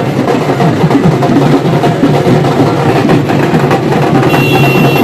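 Dhak, the Bengali barrel drum, beaten with sticks in a fast, loud, continuous rhythm.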